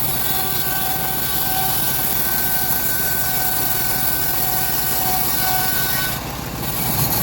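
Homemade bandsaw mill running as it saws a teak log, a steady machine noise with a high, even whine that fades out about six seconds in.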